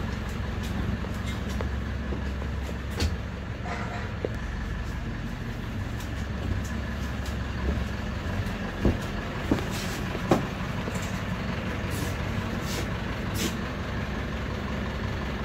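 Bus engine idling with a steady low hum, heard from inside the bus cabin. A few sharp knocks stand out about nine to ten seconds in.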